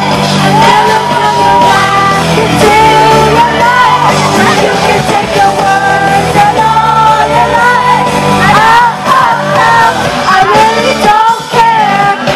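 Pop song played live and loud, with the singer and the audience close to the microphone singing along and yelling.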